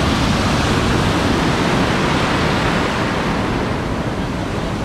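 Ocean surf breaking and washing through the pilings beneath a pier: a steady, loud rush of water and foam that eases slightly near the end.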